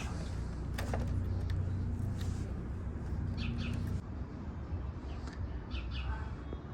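Outdoor background: a steady low traffic rumble that eases about four seconds in, with a few short high chirps and a couple of sharp clicks over it.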